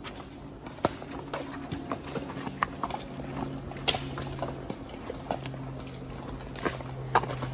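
Horse hooves clopping irregularly on a soft dirt woodland trail, over a faint steady low hum.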